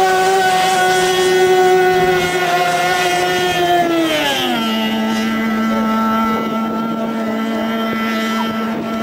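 Racing hydroplane's engine running at high revs as the boat speeds off, its note falling sharply about four seconds in and then holding steady at a lower pitch.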